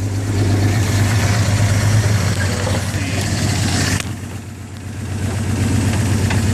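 2000 Jeep Cherokee XJ engine idling roughly with a misfire that persists despite new spark plugs. It runs steadily, drops in loudness briefly about four seconds in, then picks back up.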